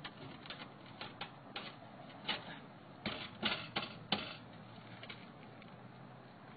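Irregular light clicks and taps, with a few sharper knocks bunched about three to four seconds in. This is bumping and scraping on a house roof while a TV antenna mast is being raised by rope and boards.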